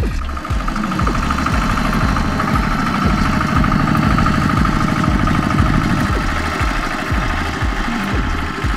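Single-cylinder diesel engine of a Kubota RT120 two-wheel walking tractor running steadily with an even, repeating knock while it pushes a straw-gathering rake.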